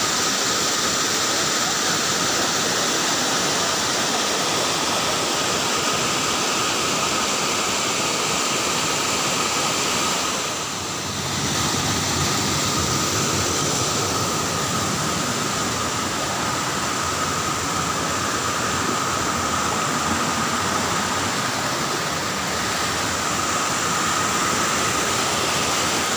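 Waterfall cascading over broad rock slabs in full flood, a steady rush of white water that dips briefly about eleven seconds in.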